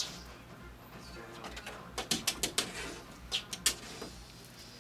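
A cat's claws scrabbling and scratching at a door. There are two short bursts of sharp scratching clicks, one about two seconds in and another about three and a half seconds in.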